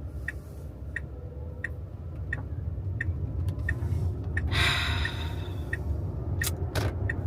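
Car turn-signal indicator ticking steadily, about one and a half ticks a second, over a low rumble of cabin road noise. A breathy exhale about halfway through and a couple of sharp clicks near the end.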